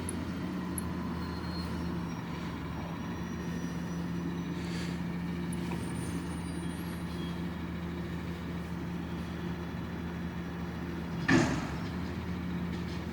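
Garbage truck's diesel engine running steadily at idle, with a short, loud hiss of air about 11 seconds in.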